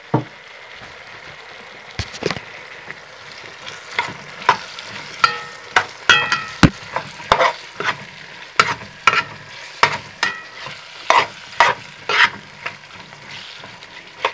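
Diced carrot and onion sizzling in oil in a kazan while a metal spatula stirs them, clacking and scraping against the pot about once or twice a second, with a brief metallic ring now and then.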